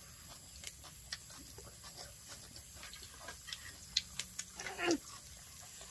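Scattered light clicks and taps of forks and a knife against plates and a bowl during eating, with a brief voice sound with falling pitch near the end.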